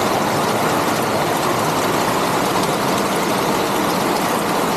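Heavy rain pouring down: a loud, steady, even hiss.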